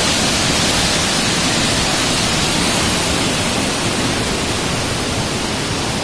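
Cikuluwung waterfall in heavy flow pouring into a churning plunge pool: a loud, steady rush of falling water.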